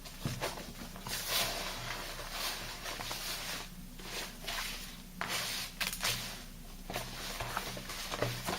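Thick soap lather paste being worked by hand, making irregular wet squishing and crackling strokes with small clicks.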